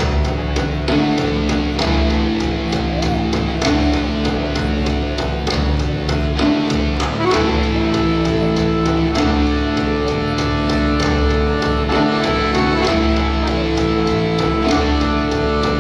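Instrumental dance music for a Karelian folk dance, with long held notes and a steady beat.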